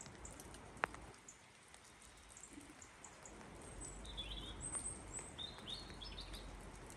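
A small bird chirping several short high calls in the second half, over a steady outdoor background hiss, with one sharp click about a second in.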